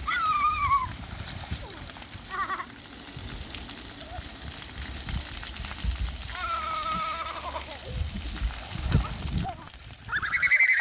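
Children's high-pitched squeals and calls, four short ones, over a steady hiss of spraying splash-pad water jets; the hiss drops away shortly before the last, loudest squeal.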